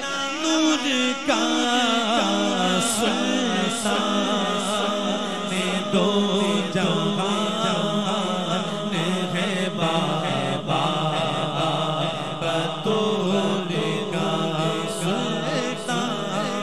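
Devotional vocal music: a male voice singing an Urdu manqabat in a melismatic chant, with other men's voices holding a steady drone beneath it.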